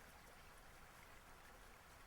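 Near silence: a faint, even outdoor hiss with a few tiny soft ticks.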